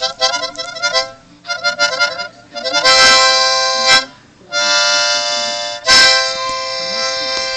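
Harmonica played loudly in chords: quick repeated fluttering chords for about the first two seconds, then two long held chords.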